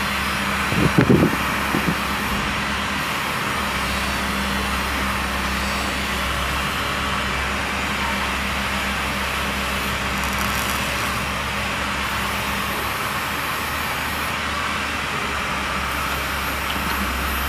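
Steady low hum with a hiss from machinery, with a few low knocks about a second in.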